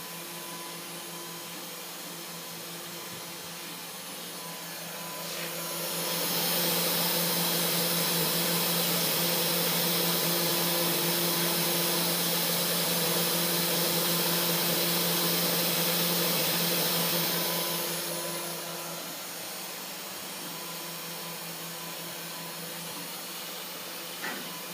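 Mini CNC router running, its spindle motor giving a steady whine. About five seconds in it grows louder with an added high whine, holds for about twelve seconds, then falls back to the quieter running sound.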